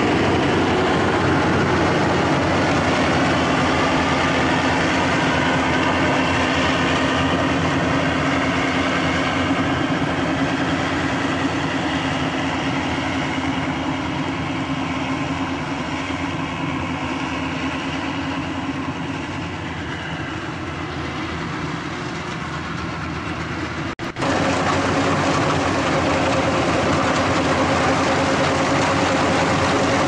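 Yanmar AW82GV crawler combine harvester running while cutting rice: its diesel engine and threshing machinery give a steady drone. The sound fades somewhat as the machine moves away, drops out for an instant about three-quarters of the way through, and comes back louder.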